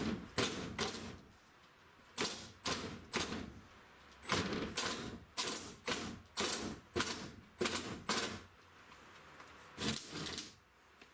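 Reciprocating saw (Sawzall) cutting through the wall in short bursts, about two a second in groups, with brief pauses between groups.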